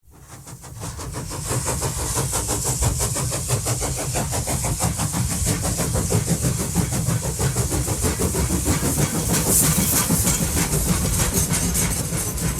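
A train running, fading in over the first second or two and then holding steady, with a fast, even beat and a heavy low rumble.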